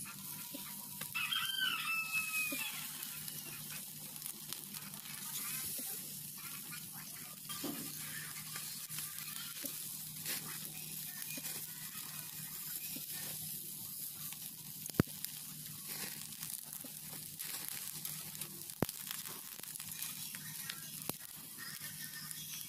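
Small whole fish sizzling on a wire grill over hot charcoal, a steady hiss. A brief call sounds about a second in, and two sharp clicks come later.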